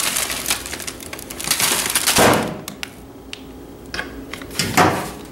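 Plastic snack bags rustling and crinkling as they are handled and pulled off a wooden cabinet shelf, with two knocks, the louder about two seconds in and another near the end.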